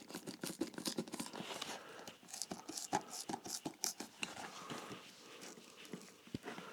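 A shoe's midsole being prised and torn away from the welt: a dense run of irregular crackles, snaps and small tearing sounds that thins out over the last couple of seconds.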